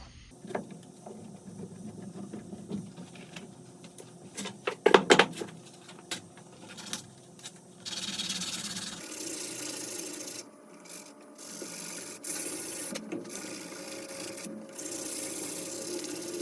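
A few knocks and handling clatter, the loudest about five seconds in. From about eight seconds in, 100 grit sandpaper rasps back and forth on a wooden knife handle in long scratchy stretches with brief pauses, taking out the grinder marks.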